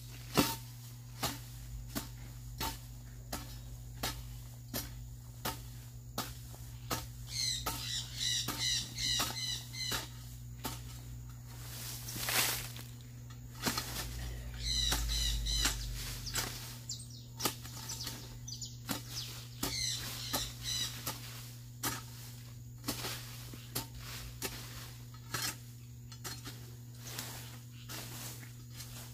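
Hoe chopping into soil and weeds in a steady rhythm, about two strikes a second. A bird calls in short chirping phrases three times, about a third of the way in, near the middle and about two-thirds through.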